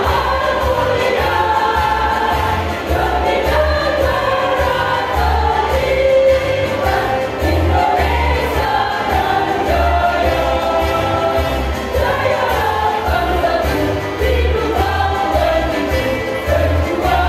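Women's choir singing together, many voices holding sustained sung lines, over a low, evenly pulsing bass accompaniment.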